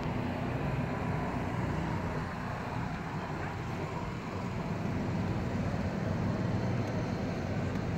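Steady low drone of a car driving, engine and tyre noise heard from inside the cabin.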